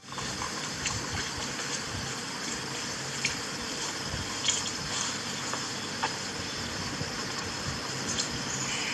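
Steady rushing, water-like noise with a few faint clicks scattered through it.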